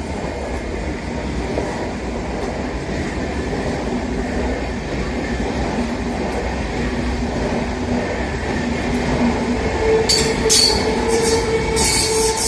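Electric MEMU train running on the rails: a steady rumble with a faint hum that moves to a higher pitch about eight seconds in, and a run of sharp, high squealing bursts in the last two seconds.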